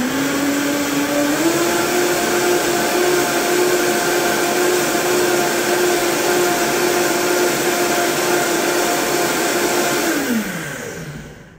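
Vitamix high-speed blender blending almond milk. The motor whine rises as it spins up, steps up in speed a little over a second in, holds steady, then falls as the blender winds down and stops near the end.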